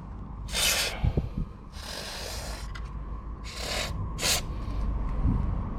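WD-40 aerosol can sprayed in four short bursts of hiss, lubricating car door hinges and the door lock and stop, with a few light knocks in between.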